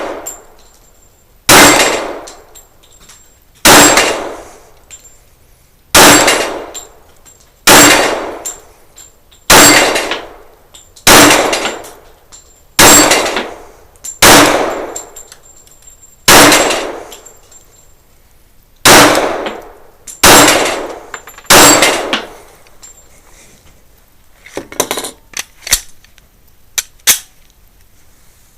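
Glock 41 .45 ACP pistol fired in slow, aimed single shots, twelve sharp reports each with a ringing tail, about one every one and a half to two seconds. Near the end come a few quieter sharp cracks and clicks.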